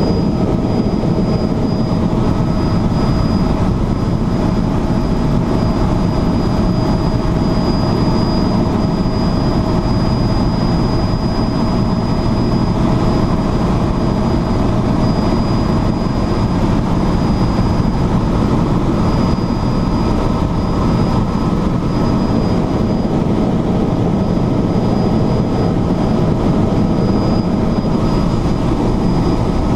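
Helicopter cabin noise in flight: the engine and rotor running steadily, a deep even drone with a thin high whine over it.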